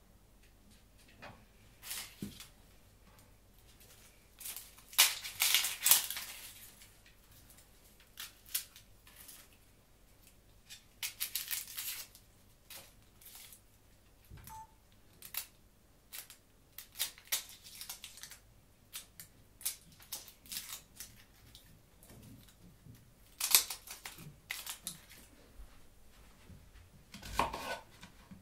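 Dry onion skin crackling and tearing as a brown onion is peeled with a small kitchen knife, in irregular short bursts, with a few light knife clicks on a plastic cutting board.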